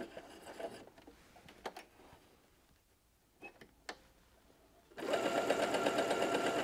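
A few faint clicks while the fabric is turned with the needle held down in a Pfaff Ambition sewing machine, then the machine starts stitching again about five seconds in and runs steadily.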